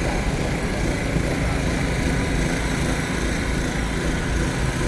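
Steady low rumble, like an engine or motor running without letting up.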